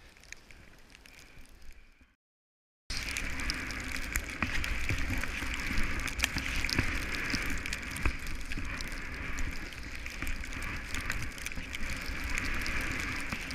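Snowboard sliding and carving through snow: a steady rushing hiss with many small clicks and knocks. It starts abruptly about three seconds in, after two faint seconds and a short dead silence.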